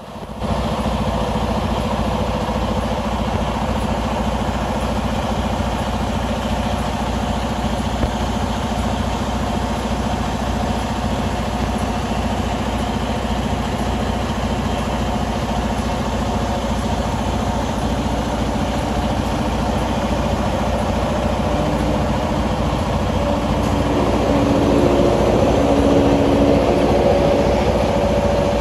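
Diesel truck engine idling steadily with a deep, even throb. In the last third a higher engine tone joins in and the sound grows a little louder for a few seconds near the end.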